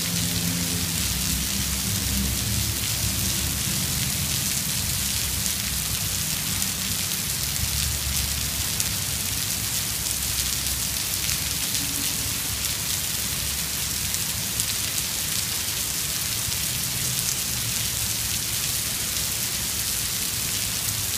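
Heavy rain pouring down onto asphalt and parked cars: a dense, steady hiss, with a low rumble underneath.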